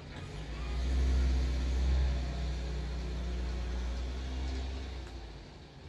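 A motor vehicle's engine going by unseen: a low rumble that swells within the first second and fades away near the end.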